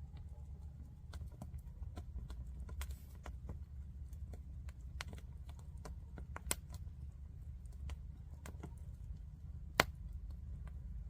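Wood fire crackling: irregular sharp pops and snaps, the loudest one near the end, over a steady low rumble.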